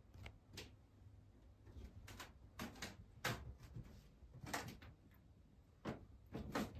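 Footsteps on a wooden staircase: a dozen or so irregular, sharp knocks, some in quick pairs, over faint room hum.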